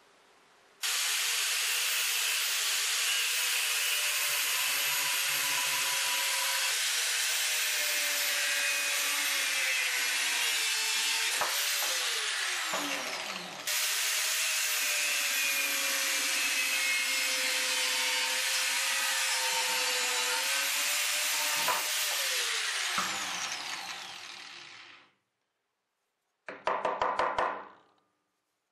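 Angle grinder with a cut-off disc cutting through a bison leg bone: a loud, steady grinding with the motor's whine, which sags and then winds down twice as the cuts finish. Near the end comes a short rattle of about a second.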